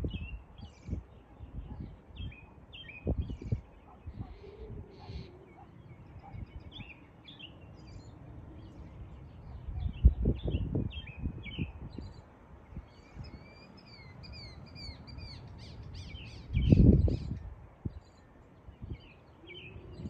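Songbirds chirping and singing in many short, repeated high notes, some sweeping down in pitch, with gusts of wind rumbling low on the microphone. The wind is loudest about ten seconds in and again a few seconds before the end.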